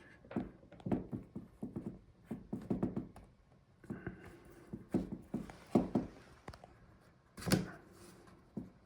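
Plastic pry tool working along the seam between a laptop's bottom case and palmrest, with a string of scattered clicks and snaps as the case clips let go; the loudest snap comes about seven and a half seconds in.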